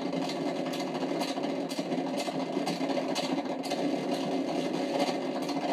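A small motor humming steadily, with faint irregular ticks about twice a second over it.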